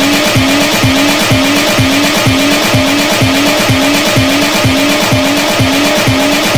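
Electro-house music in an instrumental stretch without vocals: a kick drum about twice a second under a held synth bass note that pulses with each beat.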